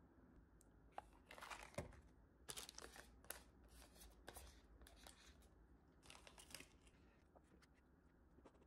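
Faint rustling and crinkling of packaging, handled in a string of short bursts for several seconds, then quiet handling noises.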